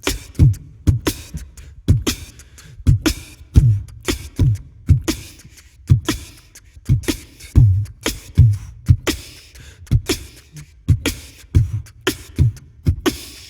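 A percussion-only beat laid over the video: deep kick-drum thumps and sharp snare-like hits in a steady rhythm of about two hits a second, with no melody or voice.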